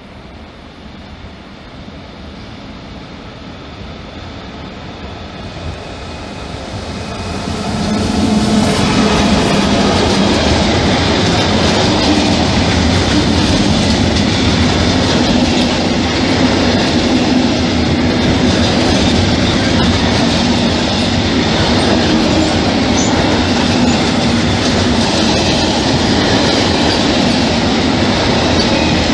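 A freight train approaching, growing louder over the first eight seconds, then passing close with a steady rolling rumble and rail clatter from its long string of covered freight wagons.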